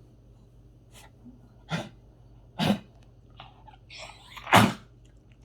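A pet coughing: a series of short, harsh coughs that grow louder, the loudest near the end, as if trying to clear something from the throat, which the owner suspects is lodged there.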